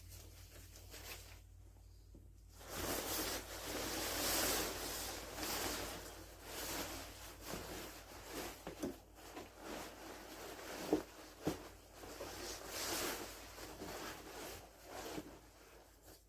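Rustling and handling of plastic prop parts or packaging, starting about three seconds in, with two sharp clicks close together a little past the middle.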